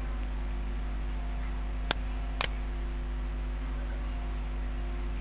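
Two computer mouse clicks about half a second apart, over a steady electrical hum and hiss.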